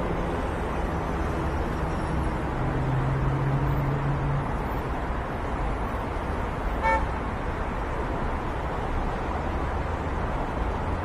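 Surf breaking on a beach with a steady rush of waves and low road-traffic rumble. A deep vehicle horn holds for the first few seconds and fades, and a short high beep comes about seven seconds in.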